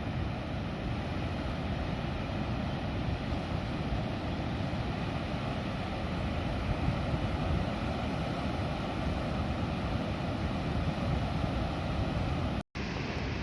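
Steady wind buffeting the microphone over the rush of ocean surf. The sound drops out completely for an instant near the end.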